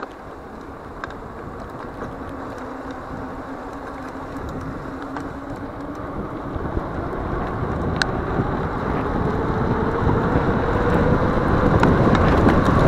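Mountain bike riding on concrete: wind rushing over the microphone and tyre noise, growing steadily louder as the bike gathers speed.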